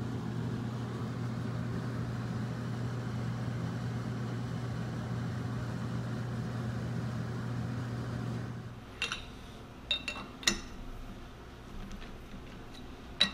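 Metal lathe running with a steady hum, which stops about nine seconds in. A few sharp metal clinks follow as a chuck key works the jaws of the four-jaw chuck.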